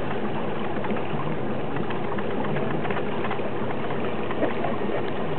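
Steady rush of a boat under way on calm water, with a low, even hum underneath.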